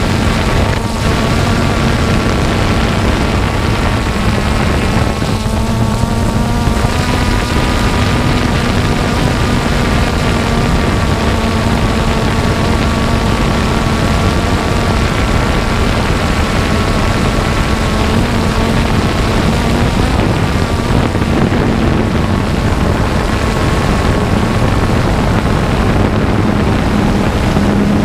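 Multirotor drone's motors and propellers buzzing steadily at close range, a steady hum with higher tones that drift slightly in pitch as the motors adjust, over a dense rushing noise.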